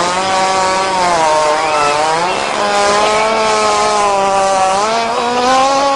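Hippopotamus making one long, continuous droning call whose pitch wavers slowly and climbs a little near the end.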